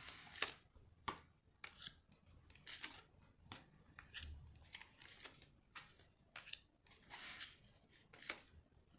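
Tarot cards being handled and laid out: an irregular run of short, papery rustles and snaps.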